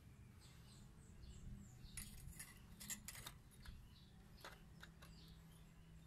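Faint light metallic clicks and scrapes of a steel dB killer insert being handled and pushed into a motorcycle muffler outlet, in two short clusters in the middle. Faint high bird chirps sound now and then.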